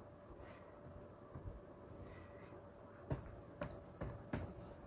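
Sharp clicks of a laptop's keys and mouse buttons, a couple of faint ones early and four louder ones close together about three seconds in, over a faint steady hum.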